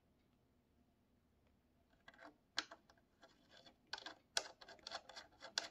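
Light metallic clicking as a greased threaded bridge stud is twisted by hand into its insert in the guitar top: a few scattered ticks about two seconds in, then a quick, fairly regular run of clicks from about four seconds.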